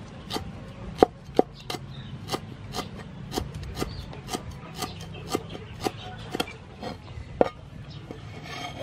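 Steel cleaver chopping green leaves on a wooden cutting board, a steady run of sharp knocks about two to three a second.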